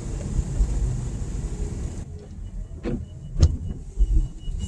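Car cabin noise while driving: a steady low engine and road rumble. The hiss above it drops away about two seconds in, and a few short clicks follow.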